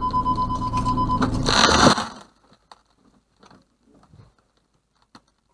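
A lorry's trailer reversing into a car and smashing its windscreen: a steady high tone over a low engine drone, then a loud crash about one and a half seconds in, after which the sound falls away to faint scattered clicks and patter.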